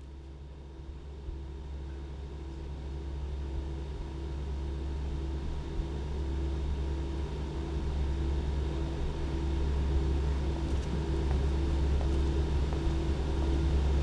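A low rumbling drone with a tone pulsing about twice a second, growing slowly and steadily louder: a suspense build-up in a film soundtrack.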